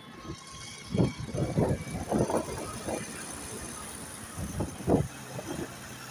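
Riding a motorcycle in road traffic: steady road and engine noise with irregular gusts of wind buffeting the microphone, heaviest from about a second in and again near five seconds.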